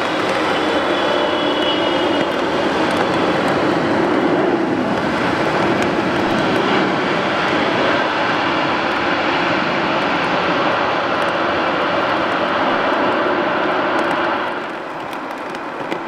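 Boeing 777's twin jet engines, a loud steady roar as the airliner rolls fast along the runway, with a thin high whine in the first couple of seconds. About fourteen and a half seconds in, it drops suddenly to a quieter, distant jet sound.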